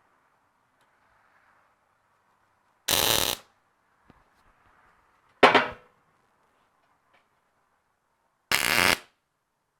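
Welder laying two short tack welds on steel bumper parts, each a steady crackling buzz of about half a second, a few seconds apart. Between them a single metal clank.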